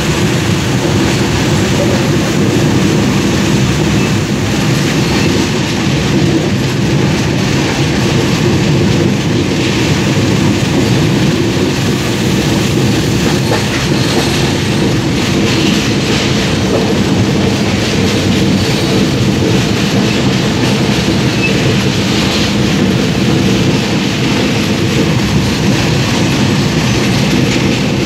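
Train running over rails, heard from inside a coach at the window: a steady, loud rumble of wheels on track.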